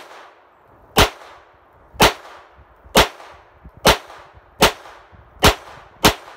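Smith & Wesson Victory SW22 semi-automatic .22 LR pistol firing CCI AR Tactical rounds, about eight sharp shots at roughly one a second, coming slightly faster near the end.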